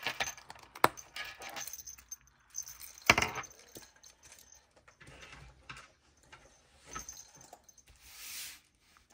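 A small pink quilted binder being handled, closed and put away: a sharp click about a second in as its strap is snapped shut, a louder knock about three seconds in, then scattered light clicks and a brief rustle near the end.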